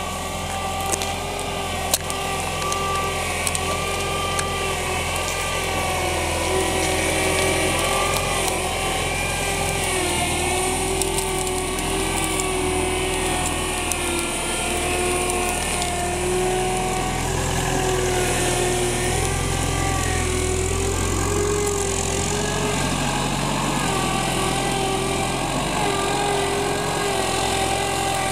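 Balkancar Record off-road forklift's engine running steadily as the machine drives over rough ground, with a whine that wavers gently in pitch. There are a few sharp clicks near the start, the loudest about two seconds in.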